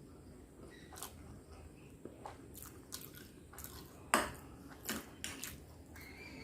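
Close-miked chewing of momos and Maggi noodles, with wet mouth clicks and smacks. The sharpest smack comes about four seconds in, and another follows just before five seconds.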